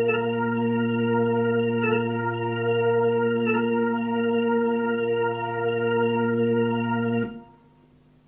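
Organ-voiced keyboard holding one sustained chord, re-struck lightly a couple of times, then cut off suddenly about seven seconds in, leaving only faint room tone.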